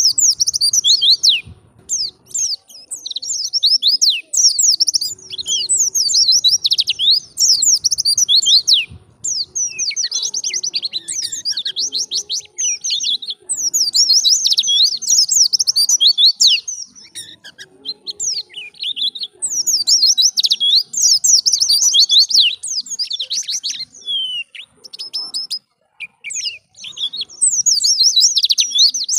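White-eye (pleci) singing its 'ngalas', wild-type song: fast, high twittering phrases of a few seconds each, broken by short pauses.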